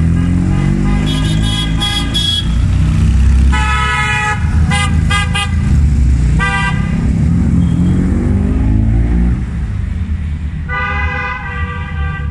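Vintage cars pulling away one after another, their engines revving up and easing off, while car horns toot again and again: several toots in the first few seconds, a run of short quick beeps about five seconds in, and a longer toot near the end.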